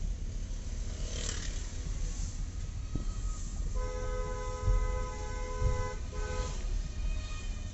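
A Hyundai car's horn sounding from inside the cabin, about halfway through: one honk of about two seconds, then a short second blast. Under it runs the steady low rumble of the moving car.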